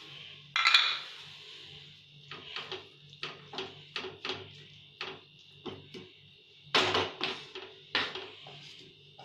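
Wooden spatula stirring and scraping a thick mashed eggplant mixture in a coated frying pan, a run of short scrapes and knocks against the pan. There is a louder clatter about half a second in and another cluster around seven seconds.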